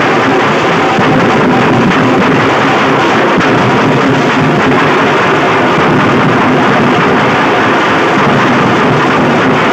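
A group of large barrel-shaped dhol drums played together with sticks and hands. The drumming is loud and continuous, a dense wash of overlapping strokes with no pauses.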